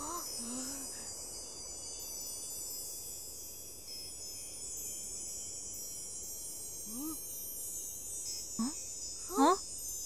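Shimmering wind-chime-like sound effect: many high, sustained tinkling tones ringing together. A few short rising pitched sounds come through near the start and again near the end, the loudest about half a second before the end.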